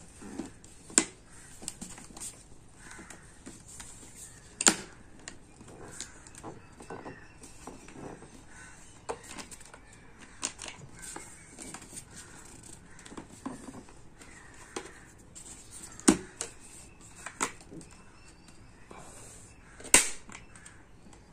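Plastic handling noises of a Steelbird SBH17 helmet visor being pressed and worked onto its side pivot mount by hand: soft rubbing and fiddling with scattered sharp clicks, the loudest a few seconds in, around sixteen seconds and near the end as the visor snaps into place.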